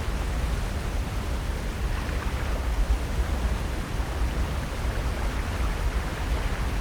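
Steady outdoor wind noise, with a fluttering low rumble of wind buffeting the microphone.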